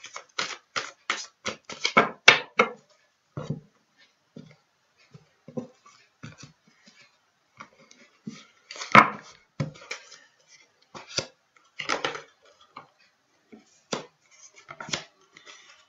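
A deck of tarot cards shuffled by hand: a fast run of card slaps and clicks for the first few seconds, then sparser ones, with a louder knock about nine seconds in as the deck meets the table, and single cards laid down near the end.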